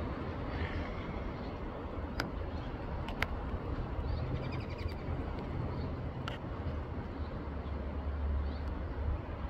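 Backyard ambience: a steady low rumble, with a few faint bird chirps about four seconds in and three sharp clicks scattered through.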